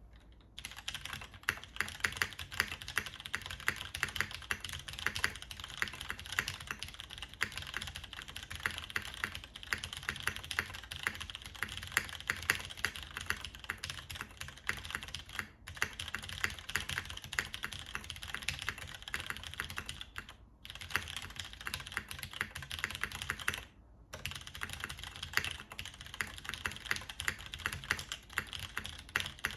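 Fast, continuous typing on a tenkeyless mechanical keyboard with MX Purple switches in a full aluminium plate and DCS keycaps, a dense stream of key clacks broken by three short pauses.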